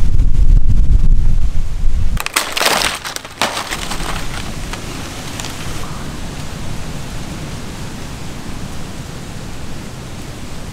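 Steady rain noise, preceded by a very loud low rumble that cuts off suddenly about two seconds in and a brief loud rush of noise a moment later.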